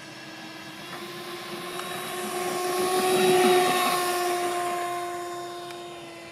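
Twin 70 mm ten-blade electric ducted fans of a model CRJ 700 jet on its takeoff run: a steady whine with a rushing hiss. It grows louder as the model approaches, is loudest about three and a half seconds in as it passes close by, then fades, the pitch dropping slightly as it goes past.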